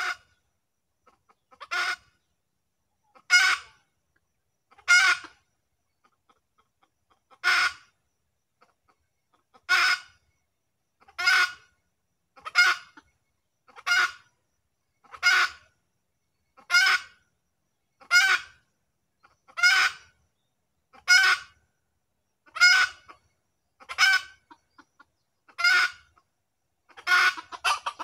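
Red junglefowl calling: short single clucking calls repeated at a steady pace, about one every second and a half, with a pair coming closer together near the end.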